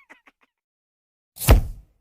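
The last short syllables of a giggle fade out, then about a second and a half in comes a short comedy sound effect: a quick swoop falling steeply in pitch that ends in a deep thud.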